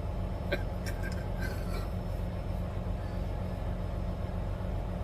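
Steady low drone of a truck's engine and road noise inside the cab while driving, with a few faint short sounds between about half a second and two seconds in.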